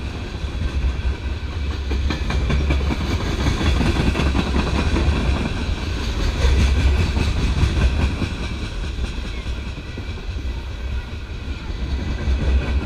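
Freight train of open-top hopper cars rolling past, a steady heavy rumble with the wheels clicking over the rail joints.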